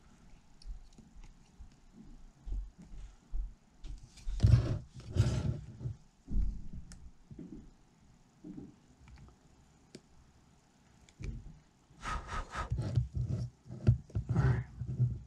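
Rubbing and handling noises at a soldering bench while 18650 lithium-ion cells are worked into a pack: faint scattered knocks, a few louder scraping bursts about four to five seconds in, and a dense run of them in the last few seconds.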